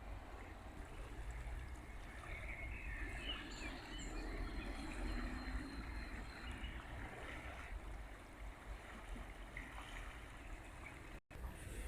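River water flowing with a steady rush, with faint birds chirping through the middle. The sound cuts out for an instant near the end.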